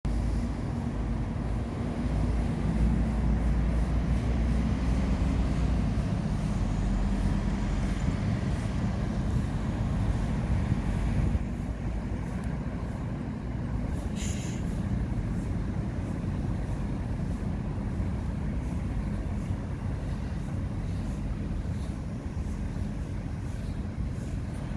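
Low, steady rumble of road vehicles, easing a little about halfway through, with one short hiss about 14 seconds in.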